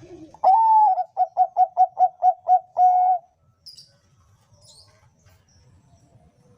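Zebra dove (perkutut) of the Thai 'bangkok' song strain cooing one phrase: a long opening coo, a quick run of about eight short notes, and a longer closing coo, all at one steady pitch.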